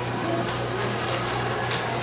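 Background room noise in a hall: a steady low hum under an even hiss, with a few faint scattered clicks.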